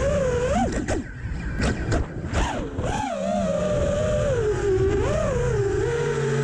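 FPV racing quadcopter (Diatone GT R548, Mamba 2207 2650 kV brushless motors) in flight, its motors whining with a pitch that rises and falls as the throttle changes. A few brief whooshing bursts come in the first three seconds.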